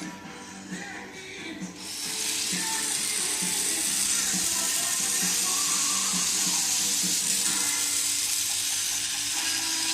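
Battery toy train running with its sound effects: a tune and a rhythmic chug under a loud, steady steam hiss that starts about two seconds in and cuts off suddenly at the end.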